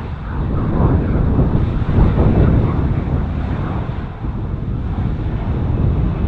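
Gusting storm wind buffeting the microphone, mixed with the steady rumble of a jet airliner's engines.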